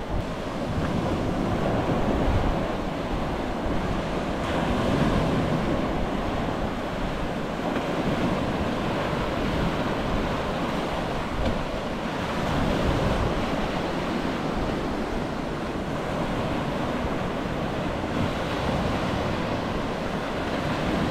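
Waves on a rough, windy sea, with wind buffeting the microphone in a low, rumbling noise that swells and eases.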